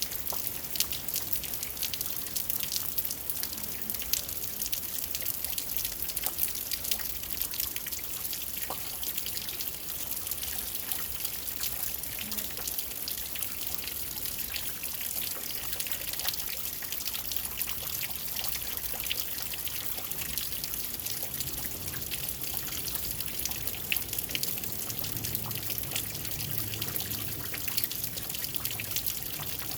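Steady rainfall at night, a dense patter of many drops with trickling and dripping water.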